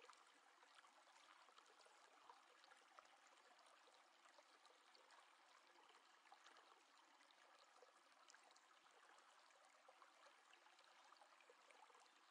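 Near silence: a faint, steady hiss of room tone with a few tiny soft ticks.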